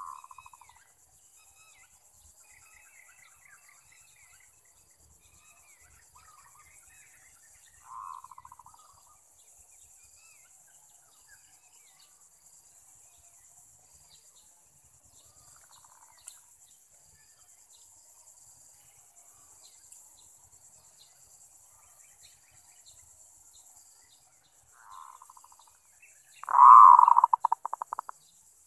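Zebra dove (merbok) cooing in its staccato, rattling trill: a short call about 8 seconds in, softer ones later, and a loud full call near the end. A steady high insect hiss and faint chirps of other birds run underneath.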